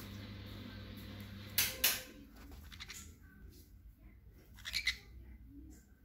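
Sun conures giving short, sharp squawks: two loud ones about a second and a half in, then a quick cluster near five seconds. Under the first two seconds runs a steady low hum that stops after the first pair.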